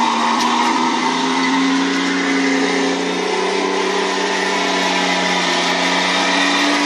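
Beier USM-HL sound module in a Torro King Tiger RC model tank playing a simulated tank engine running sound through its small loudspeaker, steady with slight shifts in pitch.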